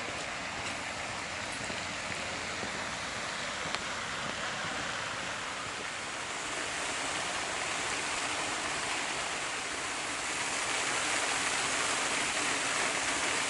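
Ornamental lake fountain jetting water: a steady splashing rush that grows louder about halfway through.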